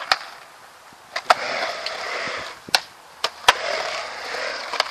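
Skateboard wheels rolling on a concrete mini ramp, the rolling noise swelling and fading as the rider goes up and down, with several sharp clacks of the board striking the ramp, two of them loudest, a little past one second and about three and a half seconds in.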